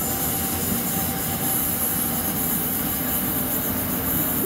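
NJ Transit ALP-46A electric locomotive and its passenger train rolling away along the track: a steady rush of wheel and running noise.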